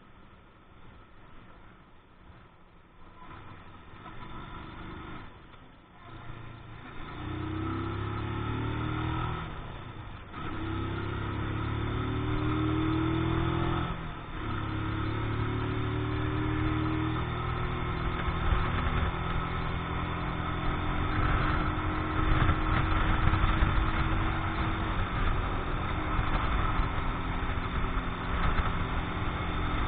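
Keeway X-Light 125's single-cylinder four-stroke engine, a new engine being run in, quiet at first, then from about seven seconds in pulling up through the gears with brief dips at two gear changes, then running steadily at speed with wind rush building.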